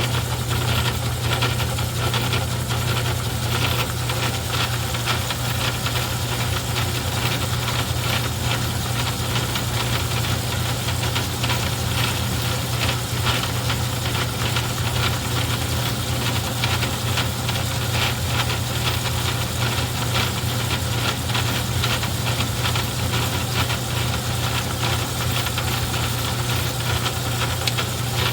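Craftsman 109 metal lathe running through a cut, its motor drive giving a steady low hum under a dense, fast rattle.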